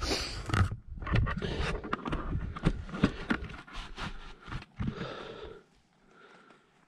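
Climbing boots scraping and knocking on rough rock and gear rubbing during an abseil, a dense run of scuffs and knocks over a low rumble on the body-worn microphone. It goes quiet about a second before the end.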